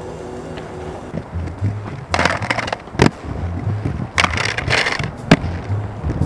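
Aggressive inline skates rolling on stone paving with a low rumble, and two scraping grinds on a ledge about two and four seconds in. Each grind is followed by a sharp clack of the skates landing.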